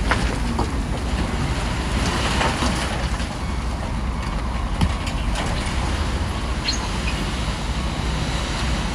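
Bulldozer's diesel engine running steadily with clattering and scraping from the machine at work, and a couple of sharp knocks.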